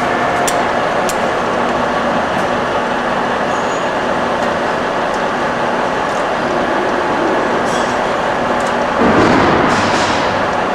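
Warner & Swasey 1A turret lathe running, its spindle drive and gearing making a steady mechanical whir. About nine seconds in the running sound swells louder for a moment.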